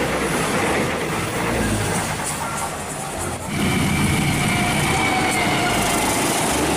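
Trains running past on the rails: a steady rushing rumble of passing cars. About halfway through it changes to an approaching diesel locomotive and train, a louder rumble with a steady high whine over it.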